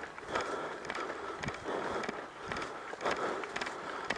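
Footsteps walking on a gravel-and-dirt track, crunching at about two steps a second.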